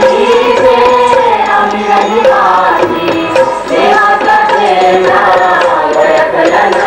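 Live Marathi folk music for a Waghya Murali dance: voices singing a devotional song over a steady hand-drum rhythm.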